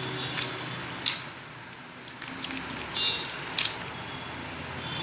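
Sharp metallic clicks and snaps of a Hyundai i20 steering lock's parts being fitted together by hand: a loud click about a second in, a run of small ticks, and another loud click about three and a half seconds in.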